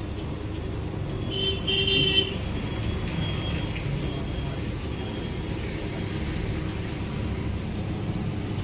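Steady rumble of road traffic with a short vehicle horn toot about a second and a half in.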